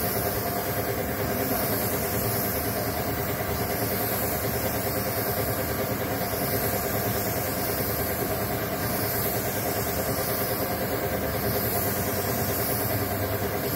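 Steady hiss of a gravity-feed paint spray gun blowing paint onto a car panel, over a steady machine hum from the compressed-air supply.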